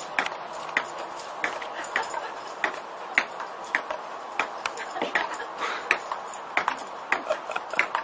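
Table tennis rally: the ball clicking back and forth off the paddles and the table, two or three hits a second at an uneven pace.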